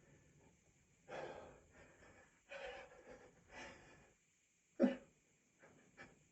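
A man's gasping pre-sneeze inhales, three in a row, then one short, sharp stifled sneeze about five seconds in, held back with a hand over the nose and mouth.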